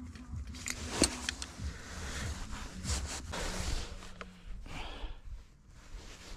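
Hand tools and metal parts scraping and rattling while an electric vehicle winch is being dismantled, with one sharp metallic click about a second in.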